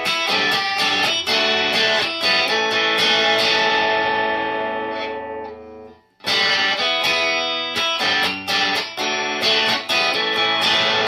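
Electric guitar played through a distortion pedal with its bass contour knob turned partway down, giving a less bass-heavy tone. It plays a phrase of picked chords that rings out and fades about six seconds in, then starts a second phrase.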